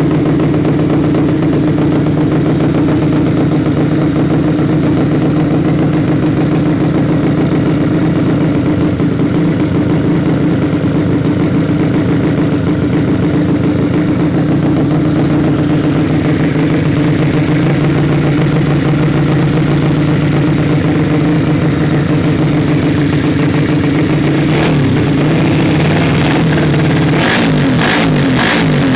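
Suzuki Nex scooter's single-cylinder four-stroke engine, bored out to 130cc, running steadily at a fast idle. Near the end it is blipped in several quick revs.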